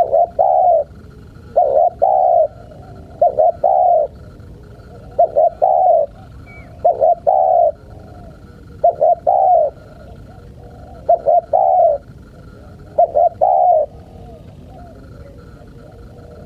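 Spotted dove (tekukur) cooing its repeated call: a short note followed by a longer rolling coo, about every two seconds, eight times, stopping near the end.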